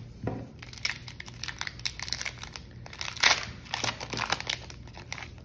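Foil wrapper of a Pokémon TCG booster pack crinkling as it is handled and torn open by hand: a dense run of irregular crackles, loudest about three seconds in.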